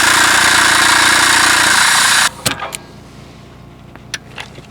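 Pneumatic air hammer running in a loud, steady burst for about two seconds against a seized splined muffler bolt, then cutting off sharply; the bolt does not budge. A few light clicks and taps follow.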